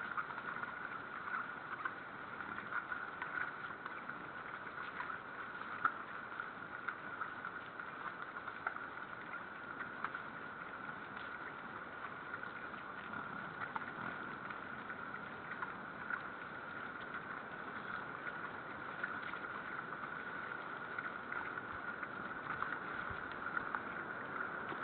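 A herd of wild boar eating grain scattered on snow: many small irregular crunching clicks from chewing and trampling, over a steady high-pitched hum.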